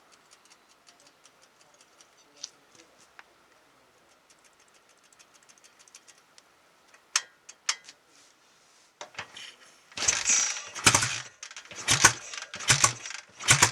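Faint ticking, then about ten seconds in the freshly rebuilt BSA A650 twin fires and runs unevenly with loud, irregular beats, about two a second. The owner thinks the ignition timing is a bit retarded.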